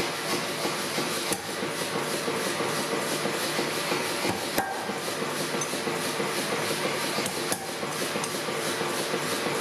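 Steady rushing forge-shop noise with a fast, even pulse, broken by three sharp knocks about three seconds apart.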